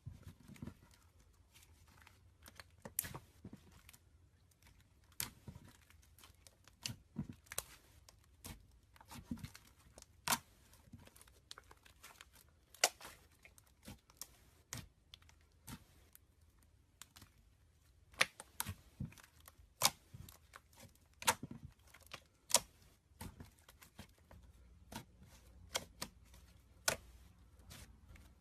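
Slime being worked by hand, giving off irregular sharp clicks and pops, a few a second, with soft tearing noises in between.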